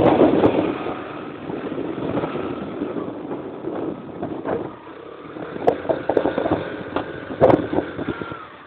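Motorbike running along a road, its engine and wind rushing over the microphone, with a few knocks and rattles from the handheld camera in the second half.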